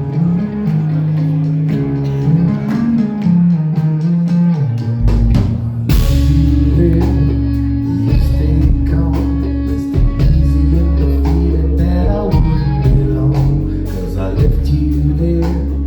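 Rock band playing live, instrumental: a guitar line at first, then about six seconds in the full band comes in with heavy bass, drums and a cymbal crash.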